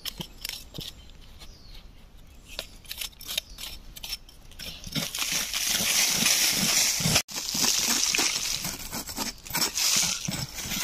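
A knife blade scraping and jabbing into dry, crumbly soil at a mouse burrow's entrance, with scratchy, crackling dirt sounds, denser and louder in the second half.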